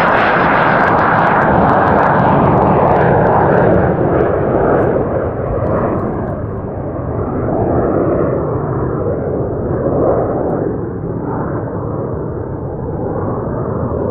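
Gulfstream G100 (Astra SPX) business jet's twin Honeywell TFE731 turbofans at climb power, flying away. A high whine falls in pitch and fades in the first few seconds, leaving a loud jet rumble that swells and dips as it slowly dies away.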